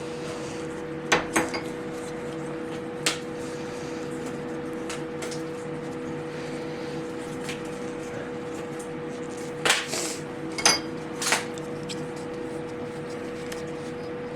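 Metal sink mounting clips and their screws clinking and clicking as they are handled, a few sharp metallic clicks with a cluster of louder ones about ten seconds in. A steady hum runs underneath.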